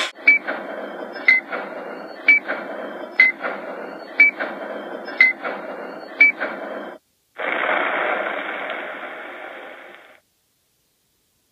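Countdown timer sound effect: seven short, sharp beeps about a second apart over a steady hiss. After a brief silence comes an explosion-like rush of noise that fades out over about three seconds.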